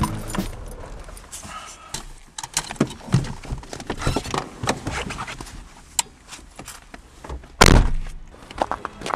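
Car keys jangling and clicking at a Renault's ignition, with scattered knocks of handling inside the car. About three-quarters of the way through, a car door shuts with a heavy thud, the loudest sound.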